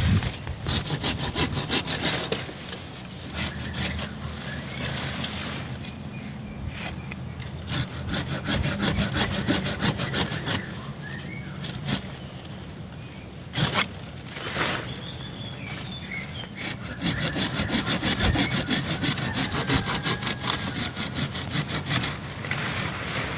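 Hand pruning saw cutting through branches of a waru (sea hibiscus) bonsai. It goes in several runs of quick back-and-forth strokes with short pauses between them.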